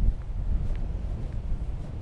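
Wind buffeting the microphone: a low, gusting rumble that rises and falls unevenly.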